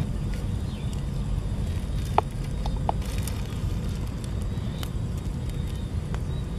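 Eggs dropped into a plastic bag of water: one sharp plop about two seconds in, then two smaller ones just after, over a steady low rumble.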